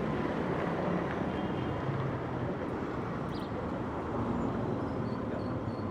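Steady city street ambience: a constant wash of traffic noise with no single event standing out.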